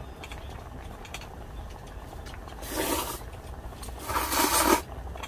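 Ramen noodles being slurped loudly in two short slurps, about three seconds in and again near the end, the second one longer and louder, over a steady low rumble.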